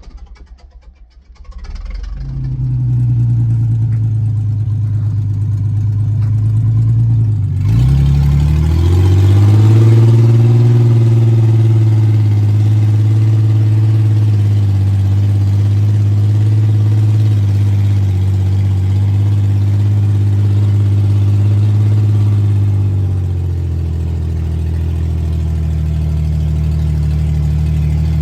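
Jeep Cherokee XJ engine running. It fades in over the first few seconds, climbs in pitch about eight seconds in, holds a steady note, then settles a little lower near the end.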